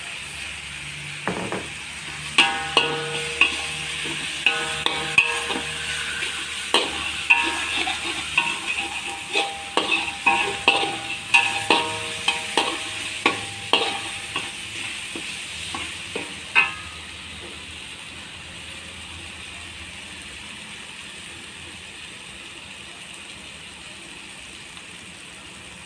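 Metal spatula scraping and knocking against a wok while spice paste is stirred and fried in hot oil, the wok ringing briefly with many of the strikes, over a steady sizzle. The stirring stops about two-thirds of the way through, leaving only a quieter sizzle.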